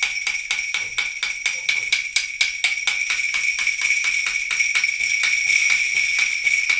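Stand-mounted plastic tambourine fitted with small jingle bells instead of metal zils, struck with a drumstick on its playing surface in a steady run of about five strokes a second, the bells ringing continuously like sleigh bells.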